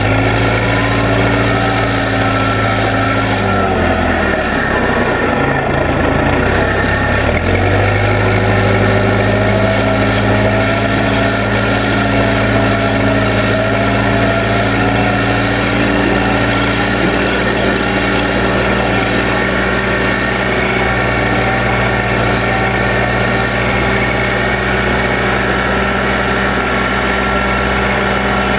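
Case 580B backhoe engine running steadily at working speed. Between about four and eight seconds in, its pitch dips and then climbs back, as the engine is loaded or throttled down.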